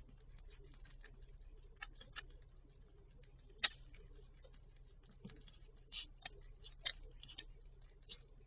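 Faint, irregular wet clicks and ticks of a mother cat licking her newborn kitten, with one sharper click about three and a half seconds in, over a low steady hum.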